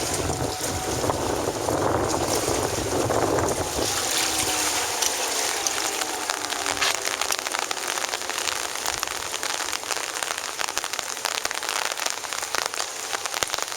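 Rain falling hard, a dense crackle of drop impacts, with wind gusting on the microphone in the first few seconds. Underneath, a distant outdoor tornado warning siren sounds faintly, its pitch slowly falling as it winds down.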